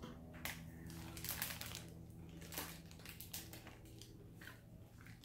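Faint, scattered crunches of a person biting and chewing a crunchy snack bar.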